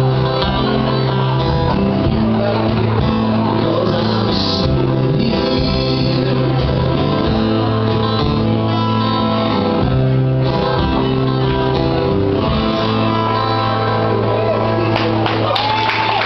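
Live band of acoustic and electric guitars with drums playing the closing bars of a song, with singing. Audience applause and cheering break out near the end as the song finishes.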